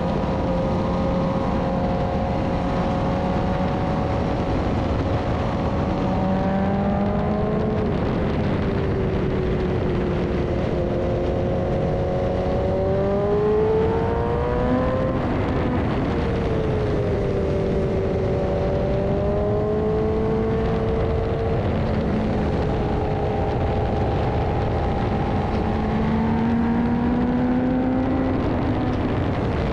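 BMW S1000RR inline-four engine pulling on the road, its revs climbing and dropping several times as the throttle opens and closes, with the sharpest climb and fall about halfway through. A steady rush of wind runs underneath.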